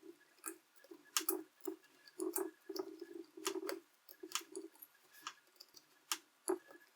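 A 3/32 Allen wrench turning a screw in a shotgun's pistol grip assembly: irregular sharp metal clicks and short scraping rattles as the key is reseated and turned, with small handling knocks.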